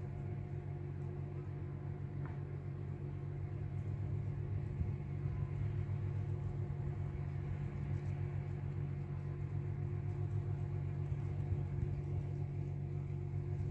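A steady low mechanical rumble with a constant low hum.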